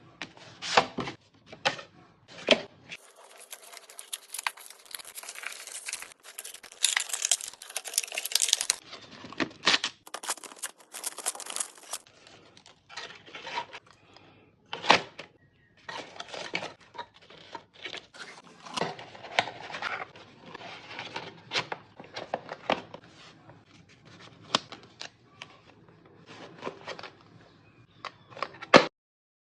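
Packaging of a small kit being torn and crinkled by hand, with a long tearing hiss a few seconds in and many scattered clicks and knocks of small parts being handled.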